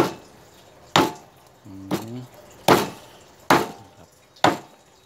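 Meat cleaver chopping raw chicken on a thick round wooden chopping block: five sharp chops, unevenly spaced about a second apart. A brief murmur of a man's voice comes between the second and third chop.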